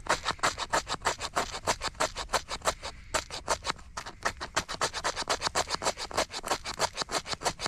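Knife spine scraped rapidly and repeatedly down a ferro rod, about six sharp strikes a second, throwing sparks at the tinder, which is not yet catching.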